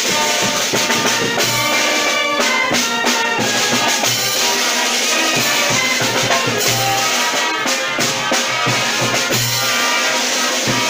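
Music played with drums: a bass drum and snare keeping a steady beat under pitched instruments.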